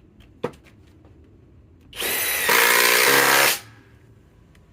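Kobalt XTR cordless impact driver running for about a second and a half, driving a fastener: it spins up, then turns louder as the impact mechanism hammers, with its pitch falling toward the end before it stops.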